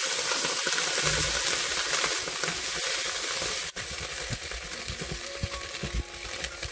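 Sliced onions sizzling and hissing in a hot frying pan just after a tablespoon of water goes in. A little under four seconds in the sizzle drops abruptly to a quieter crackle, with a spatula scraping and clinking against the pan as the onions are stirred.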